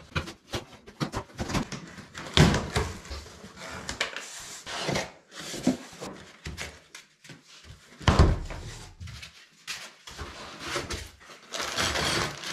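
Cardboard shipping box being opened and unpacked by hand: flaps and cardboard rustling and scraping with irregular knocks, a couple of them louder, then a plastic hardware bag crinkling near the end.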